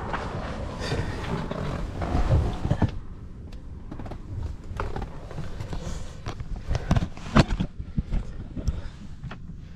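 Someone climbing into a pickup truck's cab: wind buffets the microphone for about three seconds, then cuts off sharply, followed by scattered clicks and knocks of handling things inside the cab.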